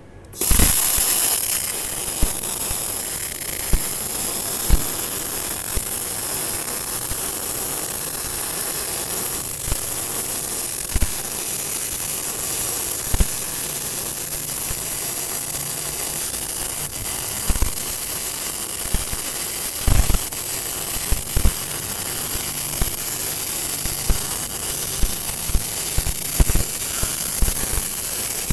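MIG welding arc from a TOPGUN MIG-315VS welder running a fillet bead on a steel T-joint: a steady crackling sizzle that strikes up about half a second in, with scattered sharper pops.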